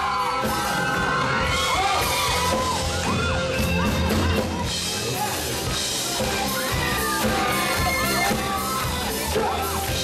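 Live band playing on stage: drum kit, electric guitars and keyboard, with a male singer. The audience screams and whoops over the music.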